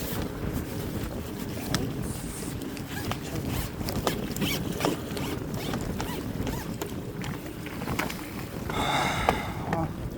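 Strong wind buffeting the microphone in a steady low rumble, with scattered sharp clicks. A brief high-pitched sound comes about nine seconds in.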